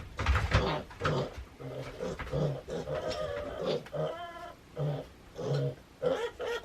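Restrained baby piglet grunting over and over in short calls, with one longer, higher-pitched squeal about four seconds in.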